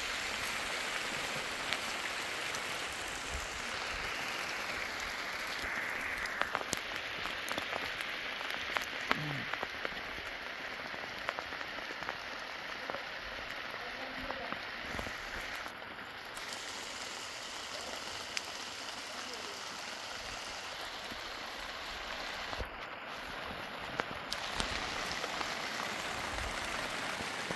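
Steady rain falling, with many individual drops ticking sharply through it.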